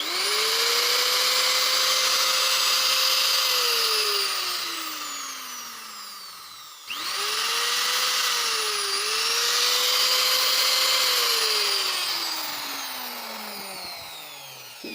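Electric angle grinder switched on, spinning up to a steady high whine, then switched off and coasting down; about seven seconds in it is started again, dips in speed briefly once, and coasts down again to a stop. The grinder is the subject of a noise complaint, with its gear and pinion set suspected.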